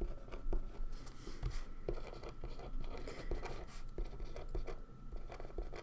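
A pen writing on paper: the tip scratching and tapping in short, irregular strokes as letters are formed on a sheet laid on a table.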